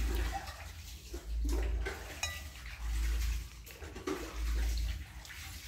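Metal spoon clinking and scraping on a ceramic plate of rice while eating, with chewing between scoops. A low rumble swells and fades about four times underneath.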